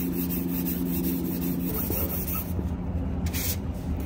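Hand-sanding a primed car body panel with a sanding sponge: steady scratchy rubbing strokes. A steady low hum underneath stops a little under halfway through.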